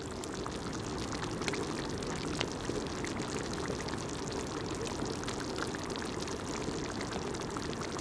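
A pot of thick seafood curry simmering over a wood campfire: a steady low bubbling with many small pops and crackles scattered through it.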